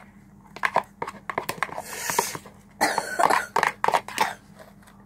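Sticky glue-and-borax slime being squeezed and pulled by hands in a plastic bowl: a run of wet squelches and sharp sticky clicks, in two busy spells that die down near the end. The slime is still sticky and not yet formed up, clinging to the fingers.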